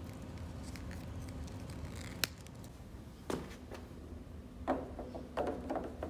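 Hands working PVC plumbing fittings: plumber's tape being wrapped onto the threads of PVC caps and a cap being fitted, giving a sharp click about two seconds in and a few light plastic knocks in the second half, over a steady low hum.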